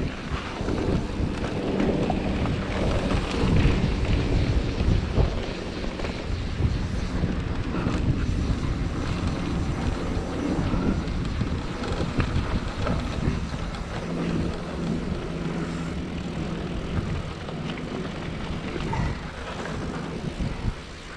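Mountain bike rolling fast down a gravel trail: a continuous rumble and crunch of knobby tyres over dirt and stones with the bike rattling, mixed with wind buffeting the microphone, easing off a little near the end.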